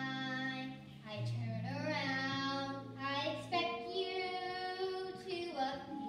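A girl singing a solo into a microphone, phrase by phrase with long held notes that waver slightly, over sustained backing notes from the accompaniment.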